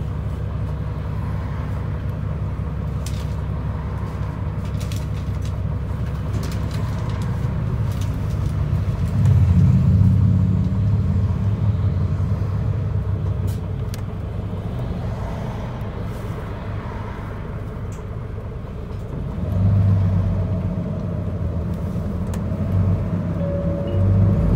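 Isuzu Erga city bus engine idling at a standstill, heard from inside the cabin as a steady low rumble. It swells louder twice, about ten seconds in and again near twenty seconds, and the bus begins to move off near the end.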